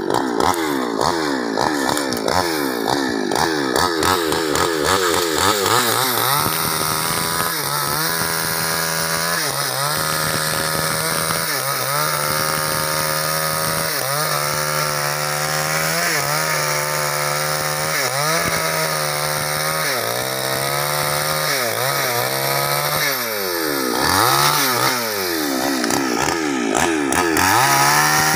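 New West petrol chainsaw cutting through a log at high revs. Its engine note dips and recovers every couple of seconds as the chain bites into the wood. Near the end the revs fall away and climb back up.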